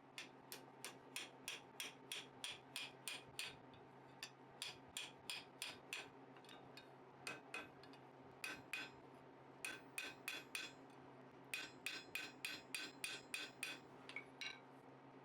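Hand hammer striking hot mild steel square bar over an anvil block, squaring up a 90-degree corner bend. The blows come fast, about three or four a second, in several runs with short pauses between, each blow with a bright metallic ring.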